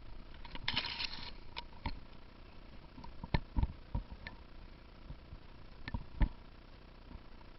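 A brief rustle about a second in, then scattered irregular knocks and clicks, as of a player moving on foot with gear.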